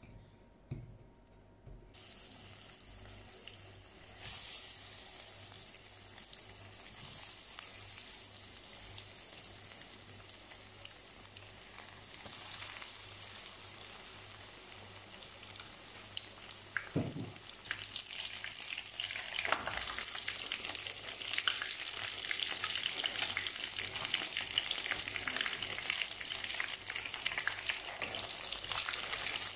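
Breaded noodle rings deep-frying in hot oil in a pan: a steady sizzle and crackle that starts suddenly about two seconds in and grows busier and louder about two-thirds of the way through, with a couple of soft knocks.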